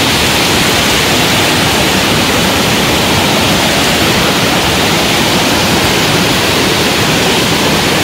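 Waterfall: a loud, steady rush of falling water that does not let up.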